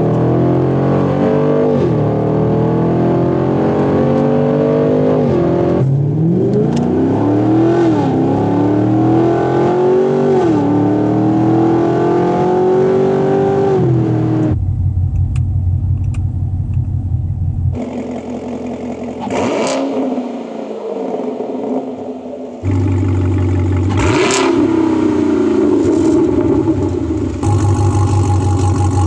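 Chevrolet Camaro SS V8 with a stainless steel performance exhaust, heard from inside the cabin accelerating hard, its pitch climbing and dropping back at each gear shift. About halfway through it is heard from behind the car: idling with a deep, steady low note, blipped to a brief rev a couple of times.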